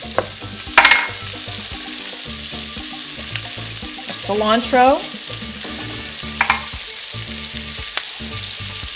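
Sliced onions and bell peppers sizzling in butter and olive oil in a hot pan with a steady hiss. A cooking utensil clicks against the pan a few times as the vegetables are stirred.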